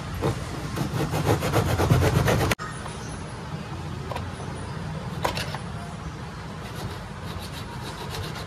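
A hand-held hacksaw blade sawing through a plastic motorcycle mudguard in quick back-and-forth strokes. About two and a half seconds in the rasping cuts off abruptly, and quieter, sparser sawing strokes follow.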